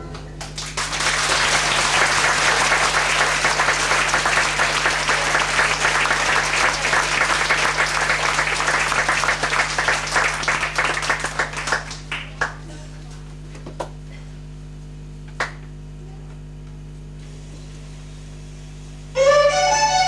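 Audience applauding, dying away about twelve seconds in, followed by a few stray claps over a low steady room hum. Fiddle-led folk music starts just before the end.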